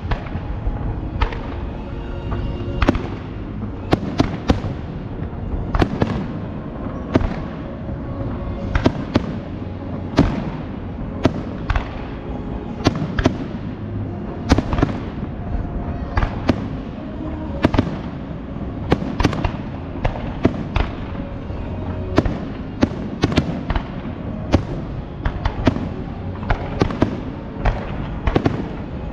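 Fireworks display: aerial shells bursting in an irregular run of sharp bangs, often several a second, over a continuous rumble of lower booms.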